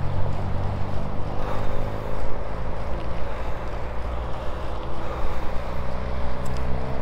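Steady low wind rumble on a GoPro Hero 9's microphone from riding a road bike at speed, with road and traffic noise underneath.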